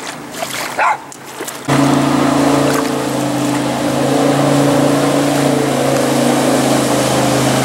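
Aluminium jet boat's engine running steadily at plowing speed, half off plane, with water rushing along the hull. It starts abruptly a little under two seconds in.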